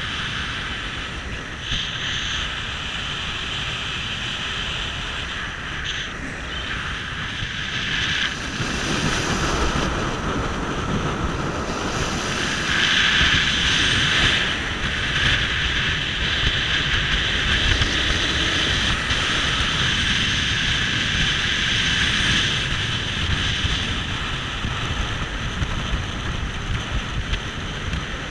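Small open motorboat underway: its engine running steadily, with water rushing past the hull and wind buffeting the microphone. It grows louder about eight seconds in.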